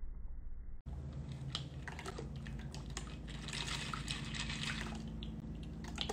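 Thick soursop cocktail pouring from a cocktail shaker's metal strainer top into a martini glass, a steady stream with dripping and splashing that is fullest around the middle. A brief dropout comes about a second in.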